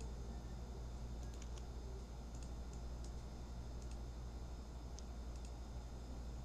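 Faint, scattered computer mouse clicks, about five or six spread over several seconds, over a steady low electrical hum.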